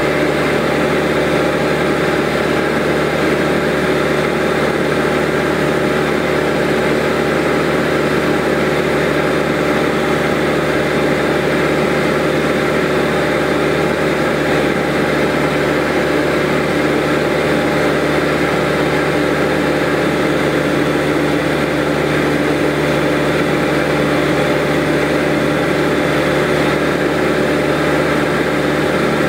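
Light propeller aircraft's engine and propeller droning steadily, heard from inside the cabin, with several steady hum tones and no change in power.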